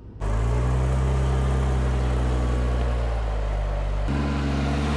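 Off-road 4x4's engine running at low, steady revs as it crawls toward a steep climb; the engine note changes abruptly about four seconds in.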